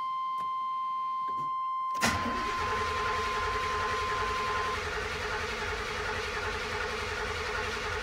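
1991 GMC C1500's 350 TBI V8 cranking on the starter from about two seconds in, turning over steadily for some six seconds without firing: a crank-no-start that the owner calls definitely a fuelling problem. A steady high warning tone from the dash sounds until about halfway through.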